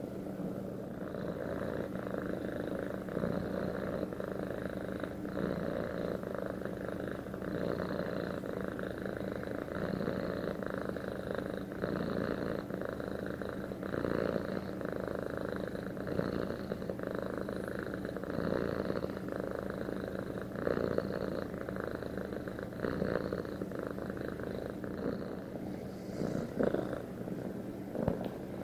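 Domestic cat purring steadily while its head is stroked, a continuous close rumble that swells and eases about once a second.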